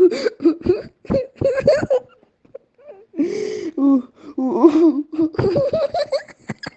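A person laughing hard in choppy, wheezing bursts, breaking off for about a second midway before starting up again.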